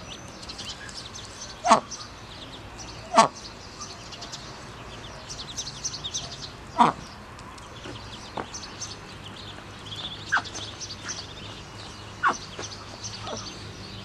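Birds chirping and twittering continually in the background, with a loud, very short sharp call standing out six times at irregular intervals.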